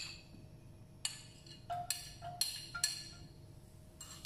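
A metal spoon knocking and clinking against a ceramic bowl as chopped garlic is scraped into a wok. The knocks are sharp and irregular, about seven of them, a few with a brief ringing.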